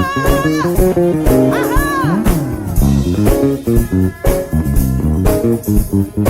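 Live gospel praise band playing, with bass guitar, guitar and steady drum hits. A held, wavering voice ends about half a second in, and a short voice glides up and down about two seconds in.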